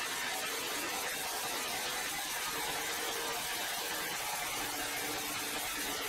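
Band sawmill running and cutting a large hardwood log: a steady hissing saw noise with a faint hum that comes and goes underneath.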